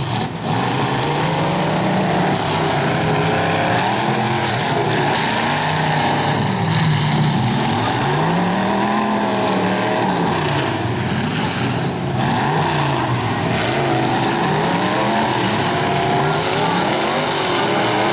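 Several demolition derby cars' engines revving hard at once, their pitches rising and falling over and over as they ram one another, with a few sharp bangs of collision.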